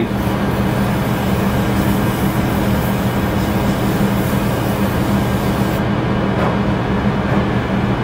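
Wood lathe running steadily with a constant motor hum while 240-grit sandpaper is held against the spinning pen blank, adding a rasping hiss. The sanding hiss drops away about three-quarters of the way through, leaving the lathe running on its own.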